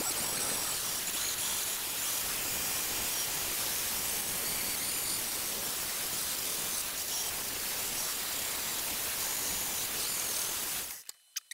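Angle grinder grinding a steel rod: a steady, loud hiss of the disc on the metal that stops abruptly near the end.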